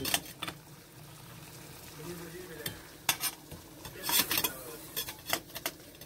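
Irregular metallic clicks and clanks from a stainless steel whistling kettle being handled on a gas hob, its handle and lid knocking against the body, over a low steady hiss.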